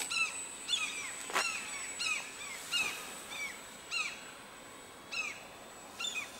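Common gulls giving short, repeated, down-slurred alarm calls, about one a second and spacing out toward the end, as a model aeroplane is flown at them.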